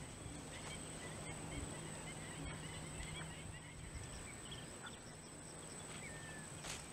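Faint natural ambience: many short, high chirps of small animals scattered throughout, over a steady high-pitched whine and a low hum.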